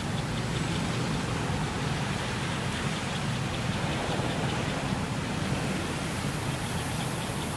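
Steady rushing outdoor background noise, with faint rapid ticking high up.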